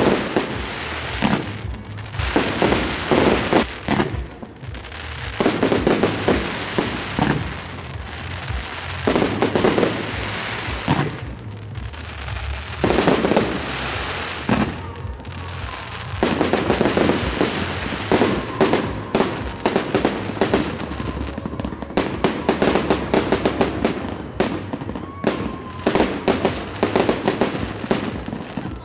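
Fireworks display: shells bursting in repeated loud bangs with crackling sparks. In the last third the bursts come in a fast, dense run of cracks.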